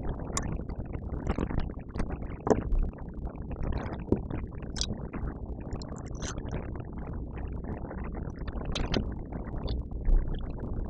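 Irregular clicks, taps and scrapes of small plastic and metal laptop parts being handled and taken apart, over a low steady hum.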